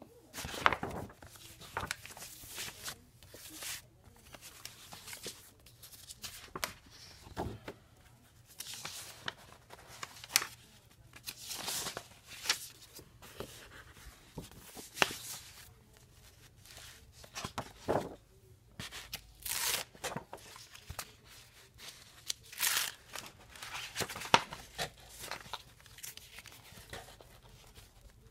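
Paper folders and clear plastic sleeves being handled and leafed through, with irregular rustling, crinkling and sharp clicks.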